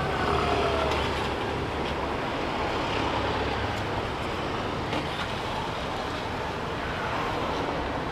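Street traffic: a vehicle engine running low and close in the first couple of seconds, then steady road noise.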